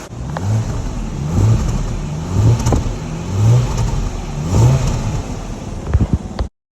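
Car engine being revved in short blips, about one a second, five times, each rev rising and falling back, before the sound cuts off abruptly.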